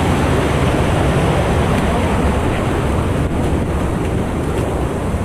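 Swollen, flooding river rushing over rocks: a loud, steady rush of water.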